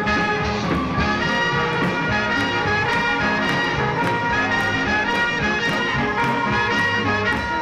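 Swing jazz with brass horns and a steady cymbal beat.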